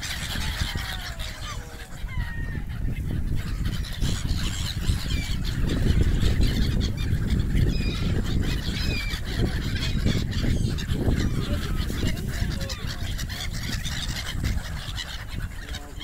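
A flock of gulls calling: many short squawks and mews overlapping throughout. Beneath them runs a dense low rumble that is loudest in the middle stretch.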